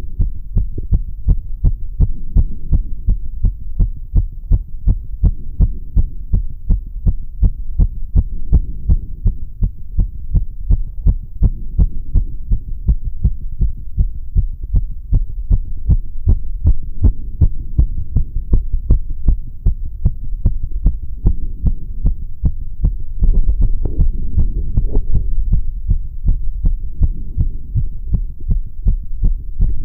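A man's heart heard by auscultation, beating fast and evenly in severe sinus tachycardia after exertion on a rowing machine. The beats come as short sharp thuds over a steady low rumble.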